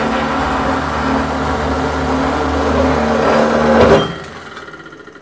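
Circular cold saw cutting through 4 inch by 3/8 steel flat bar, its motor running steadily with a low hum and the blade ringing in the cut, on a blade due for resharpening. About four seconds in the sound drops off sharply and dies away.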